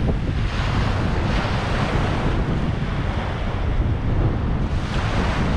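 Wind buffeting the microphone in gusts, over the steady wash of waves breaking on the shore.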